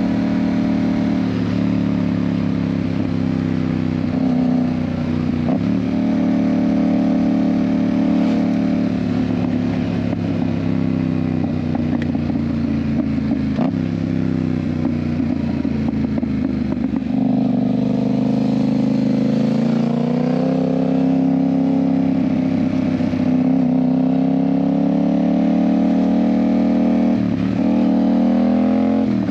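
Yamaha MT-07's parallel-twin engine with an IXIL aftermarket exhaust, heard while riding. The engine runs at moderate revs, its note rising and falling gently with the throttle, with a few brief dips along the way.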